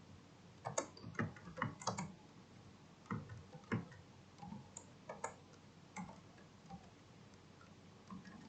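Scattered light clicks, some in quick groups of two or three, starting about a second in and thinning out toward the end, over a faint steady hiss.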